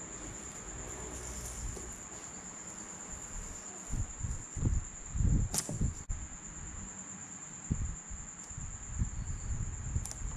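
Hands pressing and rubbing a strip of tape onto a wooden board, with uneven low thumps and rubbing and one sharp click a little past the middle. A steady high whine sounds underneath.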